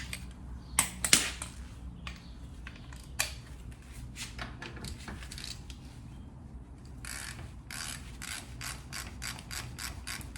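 Hand ratchet with a 1/2-inch socket clicking as it turns a car's lug nuts loose. There are a couple of louder knocks about a second in, then a quick, even run of about four clicks a second near the end.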